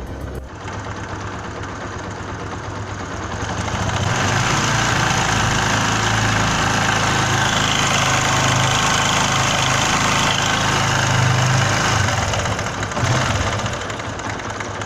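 Motorcycle engine running with a clattering rattle from a loose timing chain. It is revved up about four seconds in, held higher, and eased back down near the end.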